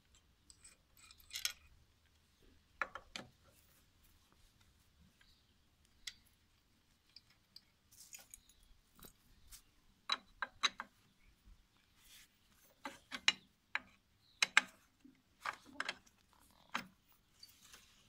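Irregular metal clicks and clinks of a homemade T-handle socket wrench fitting onto and turning the bolts of a sickle-bar mower's hold-down clips. They come sparsely at first, then in quicker clusters over the second half.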